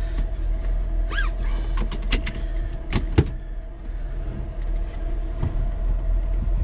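Jeep Wrangler Rubicon running slowly over rocks: a steady low engine drone, broken by several sharp knocks and clunks as the tyres and underside meet rock, two of them close together near the middle. There is a brief squeak about a second in.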